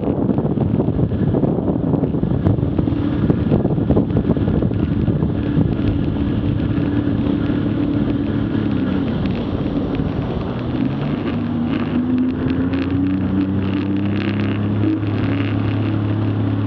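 Jet ski engine running at cruising speed with a rush of wind and water spray. About nine seconds in the engine note drops as the throttle eases back, then climbs slowly as the craft slows to a crawl.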